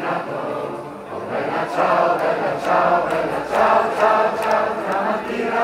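A crowd of marchers singing together, many voices in unison, growing louder about a second and a half in.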